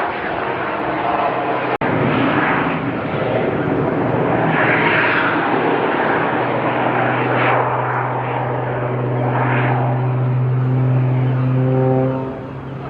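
Aerobatic display aircraft engine noise that swells and fades in repeated surges. Near the end, music with sustained low and brassy tones comes in.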